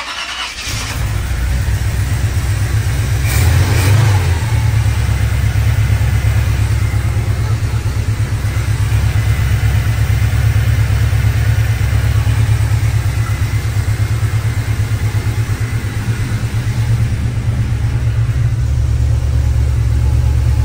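GM Performance crate 350 small-block V8, a carbureted engine, idling steadily just after firing up, with a brief rise in revs about three and a half seconds in. It is running rich while the distributor is turned to set initial timing.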